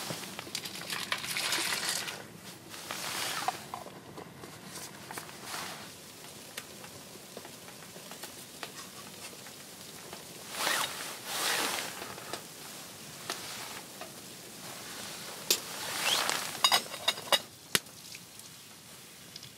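Cooking-by-hand sounds at a small wood stove: jacket and container rustling, food tipped into a metal pot and stirred with a spoon, then a quick run of sharp clicks and knocks near the end.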